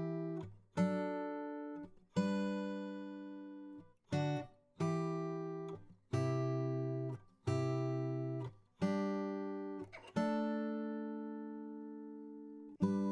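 Background music: acoustic guitar strumming chords, each left to ring out, about one every second or two, with one chord held longer near the end.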